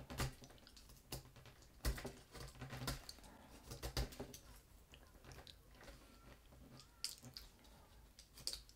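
Knife shaving the wood casing off a pencil to bare its graphite core: faint, irregular scraping clicks as the wood is cut away, roughly one every second or so.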